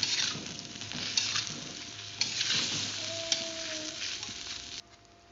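Metal spatula stirring and scraping pieces of beef skin (kikil) through a pan of sizzling chili paste and water, in several strokes. The sound cuts off suddenly near the end.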